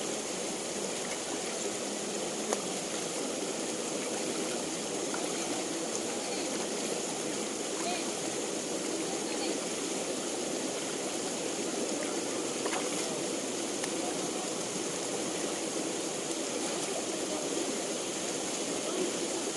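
Steady rushing of flowing water, like a small stream or irrigation channel running, even and unbroken, with a few faint ticks.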